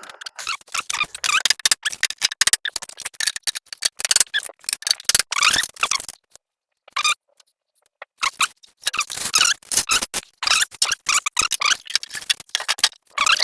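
Plastic pool-ladder parts being tapped into their seats with a rubber-capped hammer: a fast, irregular run of sharp knocks and clicks, with a pause of a second or two about six seconds in.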